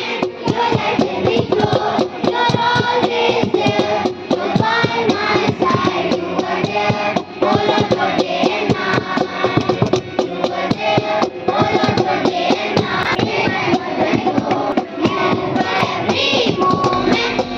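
A song with children singing over an instrumental backing.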